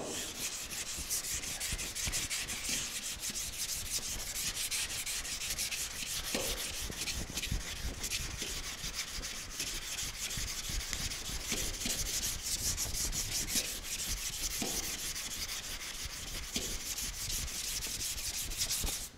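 Hand sanding primer on a car fender with a small sanding pad: fast, continuous back-and-forth scratchy strokes, rubbing off the guide coat to show up low spots and scratches. The sanding stops abruptly at the end.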